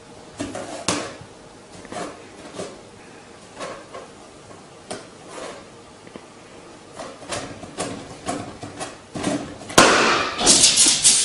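A cat's paws striking an inflated rubber balloon: a string of soft thumps, then a loud sharp pop as the balloon bursts near the end, followed by about a second of loud noisy scuffling.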